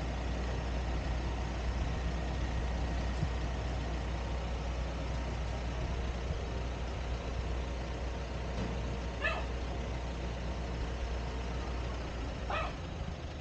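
Steady wind rumble and rolling noise on a moving camera's microphone. A dog barks twice, once about nine seconds in and once near the end.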